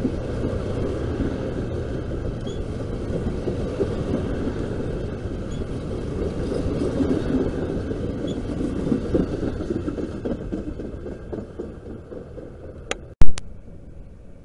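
Amtrak California bilevel passenger cars rolling past, with a steady rumble of steel wheels on the rails that fades away as the last car goes by. A single sharp, loud click comes near the end.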